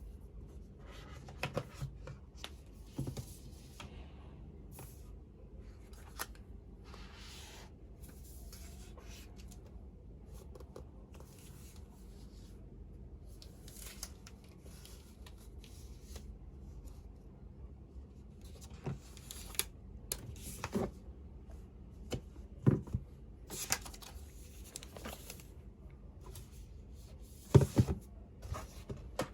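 Unboxing the packaging of an Apple Magic Keyboard: packaging rustling and tearing, with scattered clicks and several sharp knocks in the second half, the loudest near the end.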